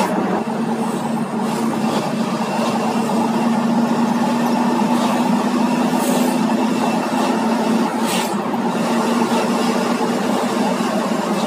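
Ambulance driving at a steady speed, heard inside the cab: a constant engine drone with a steady low hum, over road and tyre noise. Two brief hisses come about six and eight seconds in.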